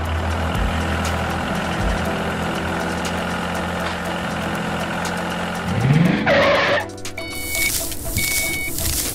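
Tractor engine sound running steadily over background music. Near six seconds comes a rising whine and a short rush, then short beeps repeat about once a second as the trolley tips its sand.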